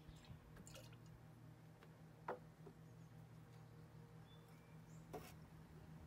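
Cocktail-making gear handled on a wooden table over a low steady hum: a sharp knock about two seconds in, and a softer knock with rustling near five seconds.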